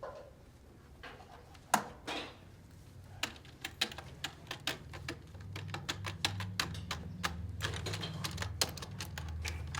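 Rapid, irregular clicking of keys or buttons being pressed, starting about three seconds in after a single sharp click, over a low steady hum.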